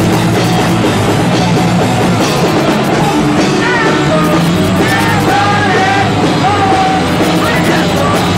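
Rock band playing live at full volume, with a voice singing from about three and a half seconds in.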